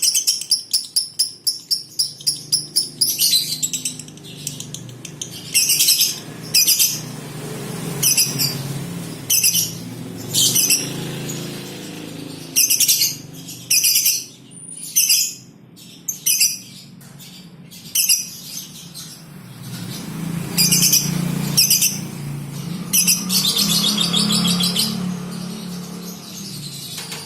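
Lovebirds chattering in short, shrill, rapid bursts, about one every second or two, after a fast rattling run of chirps at the start. It is the jerky chatter that lovebird keepers call 'konslet' in a female.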